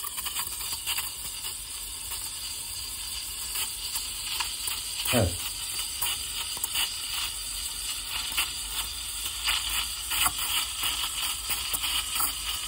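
Robo espresso machine's needle-tipped steam wand hissing in cold milk held 1–2 mm below the surface, with irregular quick clicking 'kiss' sounds as it draws in a little air and swirls the milk into a whirlpool. This is the sound of milk being stretched into cream-like microfoam rather than frothed.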